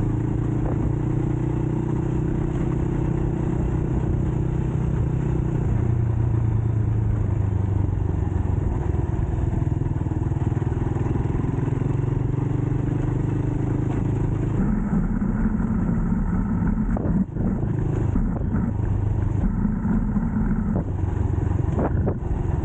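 A Rusi 200cc dirt bike's single-cylinder engine running while being ridden on a dirt track, its note rising and falling with the throttle. The note changes about two-thirds of the way through, and a few knocks from the bike over the rough track come shortly after.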